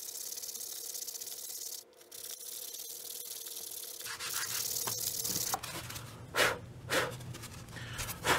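Sandpaper rubbed by hand over dried filler on a foam board: a steady fine rasping hiss, then after about four seconds a rougher scraping with a few louder separate strokes near the end.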